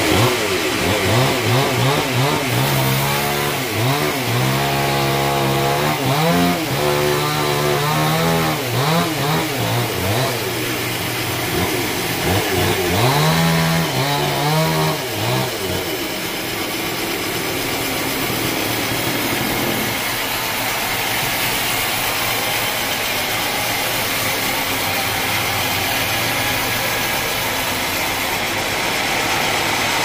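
A band sawmill cutting a hard acacia log. The drive engine's pitch swells and dips again and again under the changing load for the first half, then settles into a steady drone. A continuous high hiss from the blade in the wood runs over it.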